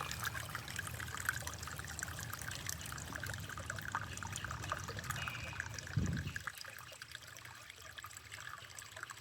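Water trickling steadily, a small stream running with many small splashes. A low rumble underneath ends with a brief thump about six seconds in.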